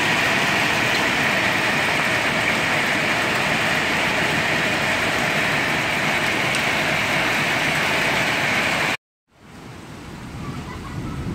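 Heavy rain mixed with hail pouring down, a dense steady hiss. About nine seconds in it cuts out for an instant and comes back quieter.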